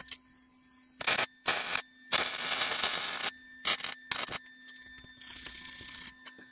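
Wire-feed welder arc crackling in short bursts of tack welding on a steel headlight ring: five bursts, the longest about a second, with a fainter hiss near the end.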